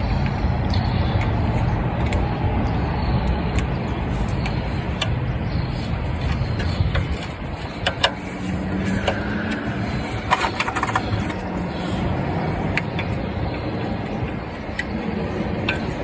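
Steady rumble of passing road traffic, with scattered small metallic clicks of a screwdriver driving the screws that hold a new ignition coil in a Honda distributor.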